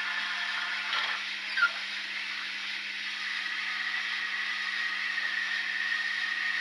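Model Saxon IV K steam locomotive's onboard sound playing a steady steam hiss through its small speaker, with a faint steady whine underneath. A short sharp squeak comes about one and a half seconds in.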